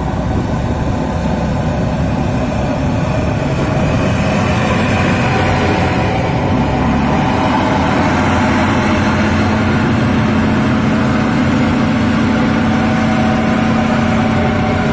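Diesel engine of a Tatra 8x8 off-road truck running steadily as the truck crawls over rough dirt ground, a loud, even drone that grows a little louder about four seconds in.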